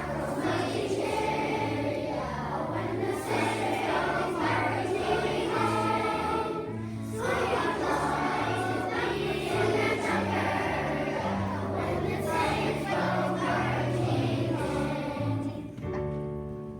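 A choir singing a spiritual over an accompaniment with a bass line that steps from note to note; the singing fades away near the end.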